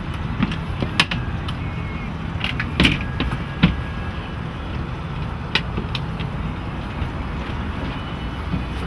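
A boat's cabin door being opened by hand: a few scattered knocks and clicks as the door panel is unlatched and folded back, over a steady low hum.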